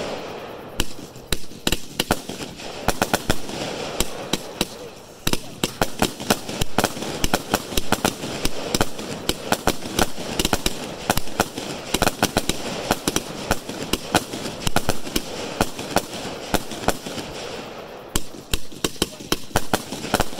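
A 130-shot consumer firework cake with 3/4-inch tubes firing: many sharp bangs a second as shells launch and burst, over a steady crackling hiss.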